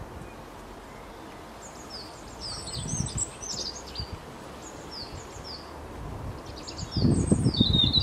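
Small songbirds chirping in the background: short, high, falling chirps, several a second in busier stretches. Low thumping rumbles come about three seconds in and again, louder, near the end.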